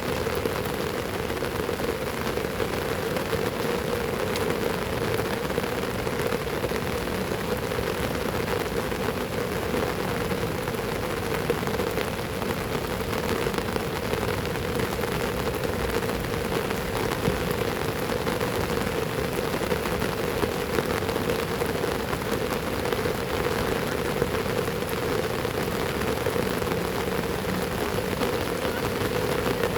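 Heavy rain falling steadily: a dense, even hiss of countless drops that does not let up.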